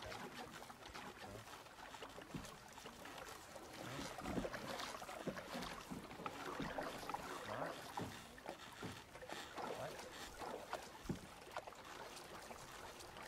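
Canoe paddling: paddle strokes splashing and swishing through the water every second or so, with a few sharp knocks in between.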